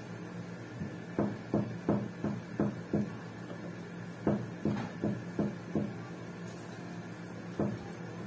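Light, quick knocks, about three a second, in two runs of five or six, with one more near the end, over a steady low hum.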